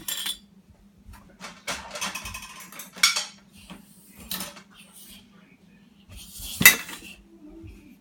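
Dishes and cutlery clinking and clattering as they are taken out of a dishwasher rack, a string of knocks with sharper clanks about three seconds in and near the end.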